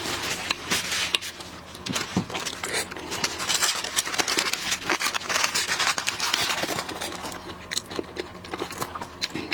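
Seafood shells being handled and broken while eating, a dense run of crackling, clicking and scraping.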